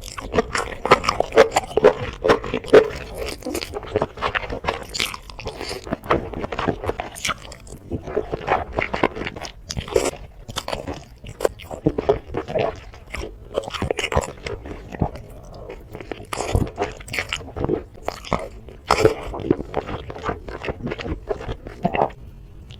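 Close-miked mouth sounds of someone eating spicy black bean enoki mushrooms: biting and chewing in a dense, irregular run of crisp clicks.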